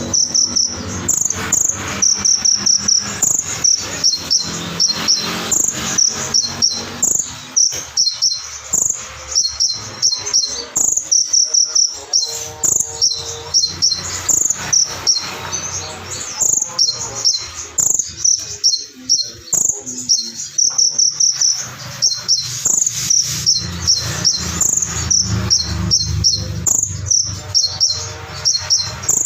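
Brown-throated sunbird (konin) singing a sharp, rapid, high-pitched song of short chirps in long runs. The song is filled with notes it has copied from cililin birds and crickets.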